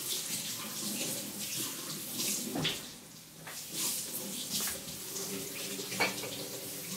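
Battered zucchini sticks sizzling and crackling in hot oil in a frying pan. Two sharp clicks, about two and a half seconds in and near the end, come from tongs touching the pan.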